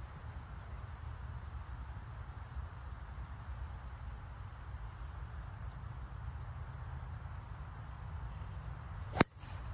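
A steady, shrill insect drone over a low rumble; about nine seconds in, one sharp crack of a driver striking a golf ball off the tee.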